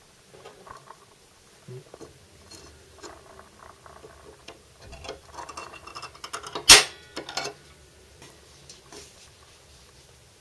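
Aluminium angle bracket and tools handled on a workbench: small clicks and rustles, then one sharp metallic clack with a brief ring about two-thirds of the way through, followed by a few lighter clicks.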